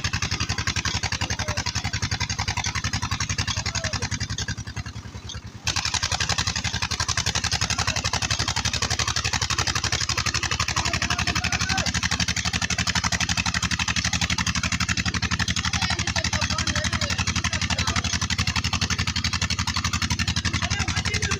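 Diesel engine of a tubewell pump running steadily with an even, rapid thudding beat. The sound sinks briefly about four to five seconds in, then comes back all at once.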